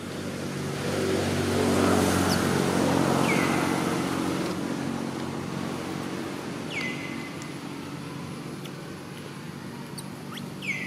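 A motor vehicle's engine passing by, growing louder to a peak about two seconds in and then fading away. Three short high chirps that drop in pitch sound over it, near the middle and near the end.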